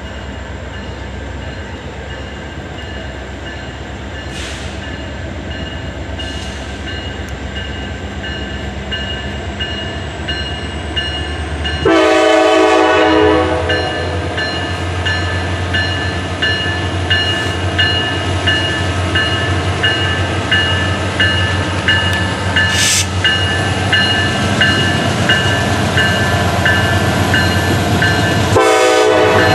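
Train passing with its diesel locomotive's engine rumbling steadily and growing louder. The locomotive's air horn sounds a blast of about a second and a half roughly twelve seconds in, and another starts near the end.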